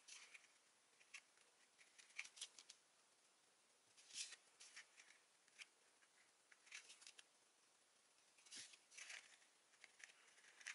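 Faint, scattered rustles and crinkles of paper as a die-cut designer-paper tag and a small cardstock box are handled and pressed together by hand.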